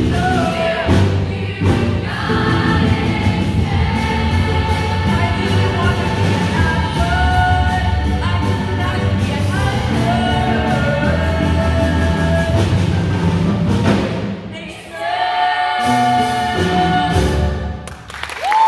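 Rock-style band playing while an ensemble sings held notes together, in a musical-theatre number; the music drops briefly twice near the end.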